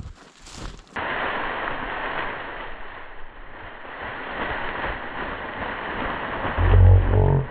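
Footsteps crunching for about a second, then a steady rush of wind buffeting the microphone with rustling, growing louder near the end.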